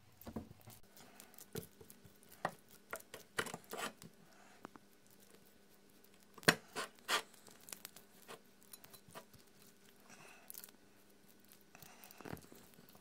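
Silicone basting brush dabbing and spreading marinade over a raw chicken leg on a ceramic plate: scattered light clicks and taps, the loudest about six and a half seconds in.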